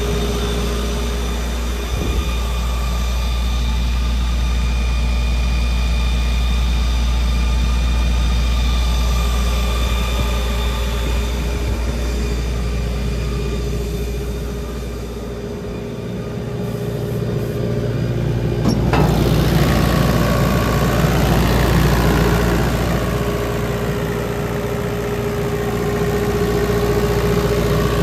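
Kubota V3300 four-cylinder diesel engine of a Multiquip Whisperwatt DCA-40SSKU generator running steadily. The sound grows quieter for a few seconds about halfway through, then comes back louder.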